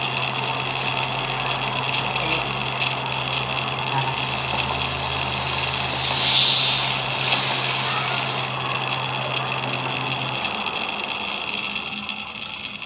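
Metal lathe running, with a steady motor hum and high whine, while abrasive cloth is held against the spinning steel shaft. There is a louder hiss of abrasive on metal about six seconds in. The motor hum stops about ten seconds in, and the sound falls away near the end.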